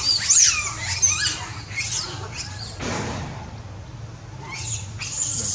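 High-pitched squeals and chirps from young long-tailed macaques, a quick cluster of rising and falling cries in the first second and a half, then a few fainter ones later.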